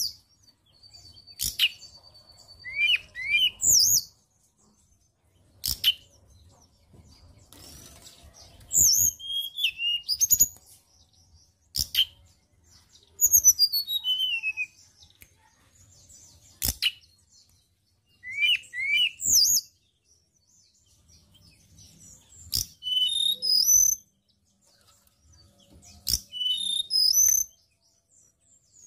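Hill blue flycatcher (tledekan gunung) singing: short phrases of high, clear whistled notes that slide down or up, repeated every couple of seconds. Sharp clicks sound now and then between the phrases.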